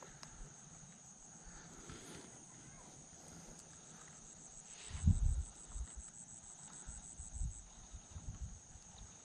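Insects chirping: a steady, high-pitched, rapidly pulsing trill. A few low rumbles on the microphone come and go, the loudest about five seconds in.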